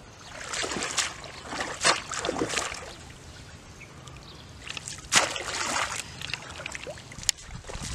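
Shallow muddy water splashing and sloshing as a bamboo plunge basket is worked into it and hands grope inside for fish, in two bouts: one in the first few seconds and another about five seconds in. A single sharp tap near the end.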